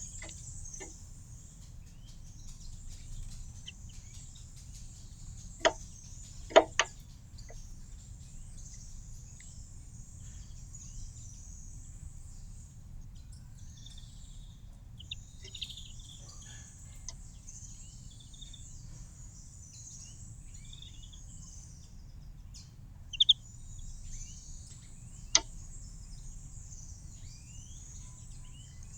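Garden ambience with small birds chirping now and then over a steady high-pitched hiss, broken by a few sharp taps: three close together about six seconds in and one more near the end.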